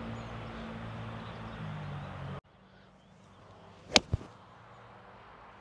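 Golf club striking the ball on a short chip shot: one sharp click about four seconds in, followed almost at once by a second, fainter click. Before it, a steady low hum runs for a couple of seconds and then cuts off abruptly.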